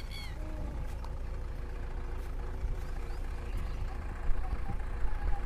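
Mahindra Thar CRDe's four-cylinder diesel engine idling steadily under a low rumble while the vehicle stands with one rear wheel articulated.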